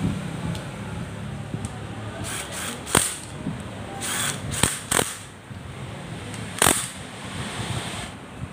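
Several sharp metallic clicks and short rattles from a cordless power driver and tools being worked on the bolts of a Honda Supremo's clutch-side engine cover, over a steady low hum.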